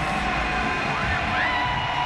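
Arena PA music playing over a cheering, whooping crowd in a large basketball arena.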